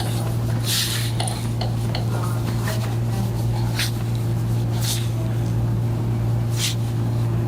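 Percussive massage gun running steadily with a low, even hum.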